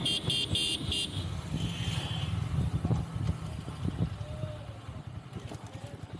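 Yamaha R15 V3 motorcycle slowing down, its single-cylinder engine and road noise getting quieter as the speed drops. A horn gives a quick string of short toots at the start.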